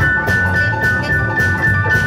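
Live band playing: a drum kit keeping a steady beat under held keyboard chords, with electric guitar and bass.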